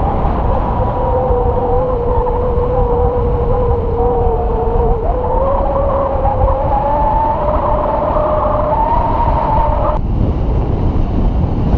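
Airflow buffeting the camera in flight, a loud low rush, with a steady whistling tone over it that wavers slightly in pitch and cuts off abruptly about ten seconds in.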